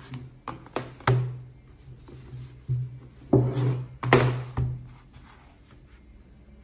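Cardboard sleeves and a paper disc tray from a Blu-ray box-set mock-up handled on a wooden table: a string of taps and knocks with short rubbing and sliding, the loudest knocks and scrapes around the middle.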